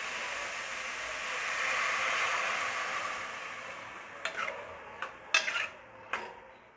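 Chopped vegetables sizzling in oil in an aluminium pressure cooker, a steady hiss that swells and then dies away after about three seconds. Then a spoon scrapes and clinks against the cooker several times as the vegetables are stirred.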